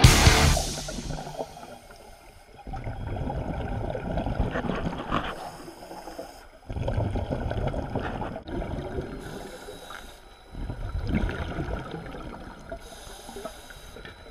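A diver breathing underwater: rounds of bubbling, gurgling noise from exhaled air, each about four seconds long with short breaks between, after a loud hissing rush at the start.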